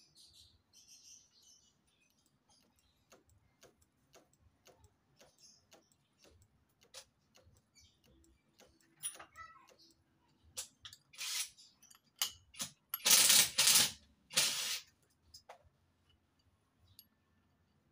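Small metallic clicks and ticks from an adjustable wrench and the brake lever being handled on a Brembo RCS brake master cylinder. A few louder, rattling noisy bursts come about two-thirds of the way through.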